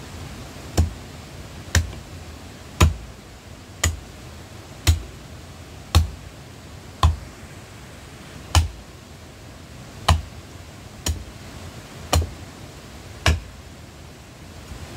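A tool striking wood in a steady working rhythm: about a dozen sharp blows, roughly one a second, with a slightly longer pause about halfway through.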